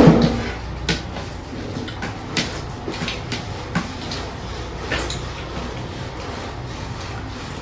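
Eating from a plate of chicken curry and rice: a handful of soft clicks and knocks from handling the food and dish, over a low steady background.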